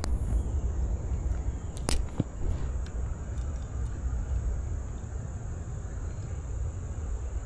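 Steady low outdoor rumble with one sharp click about two seconds in.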